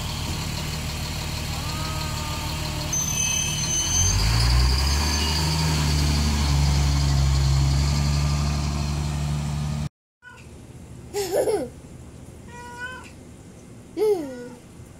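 A diesel school bus engine idling, then revving up about four seconds in as the bus pulls away. After a sudden cut, a cat meows about three times.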